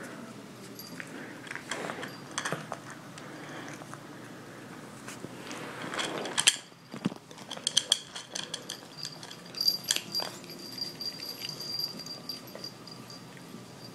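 Kitten crunching dry kibble, a run of crisp clicks that is densest in the middle. A single sharp knock about halfway through is the loudest sound.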